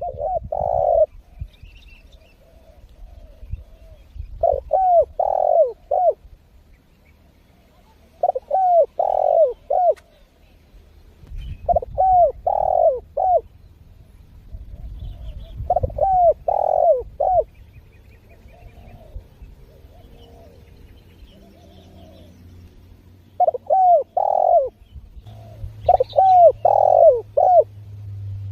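Spotted dove cooing loudly and persistently: phrases of three or four rounded coos, repeated about every three to four seconds, with softer coos in between and a longer gap about two-thirds of the way through.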